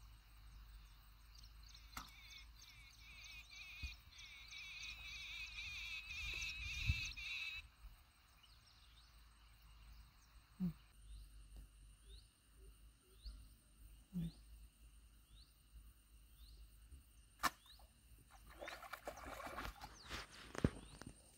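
Quiet waterside ambience with birds singing: a warbling song for several seconds, then a series of short rising chirps repeated about every half second. Near the end a hooked fish splashes at the water's surface as it is pulled in on a fishing rod.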